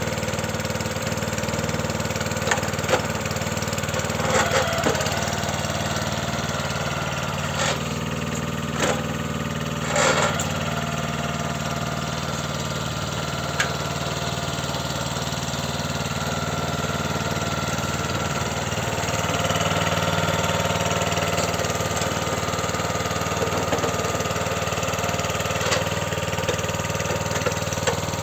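Iseki KVR70 cultivator's single-cylinder petrol engine (Iseki FE-170G) running steadily just after starting, with a few sharp clicks and clunks as its controls are worked. It runs slightly louder from about two-thirds of the way in.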